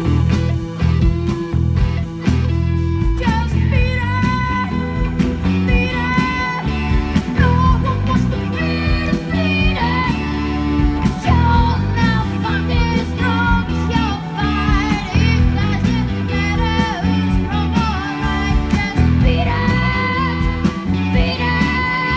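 Live rock band playing: electric guitar, bass guitar and drum kit with a steady beat, and a lead singer coming in about three seconds in and singing through the rest.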